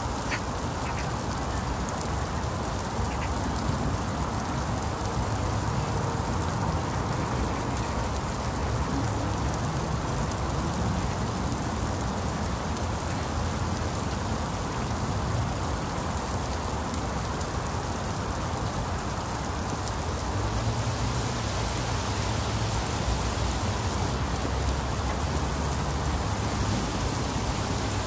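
Very heavy rain falling steadily on tiled roofs, banana leaves and puddled village lanes.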